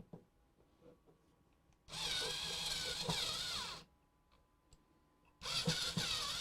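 Cordless electric screwdriver running in two bursts of about two seconds each, its motor pitch dipping and recovering under load as it drives screws.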